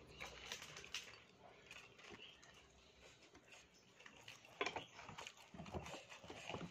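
Faint, scattered crunchy clicks of eating fried grasshoppers with rice by hand: chewing and fingers picking through the crisp pieces on the plate, with a few louder clicks in the second half.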